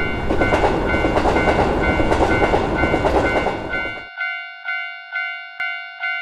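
A Japanese railroad crossing warning bell rings steadily, about two strikes a second, while a train rushes past with rhythmic wheel clatter. About four seconds in the train noise cuts off suddenly, leaving the crossing bell ringing alone.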